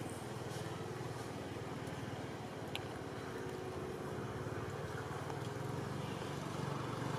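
A motor vehicle's engine running steadily, a low even hum, with one short click a little before the middle.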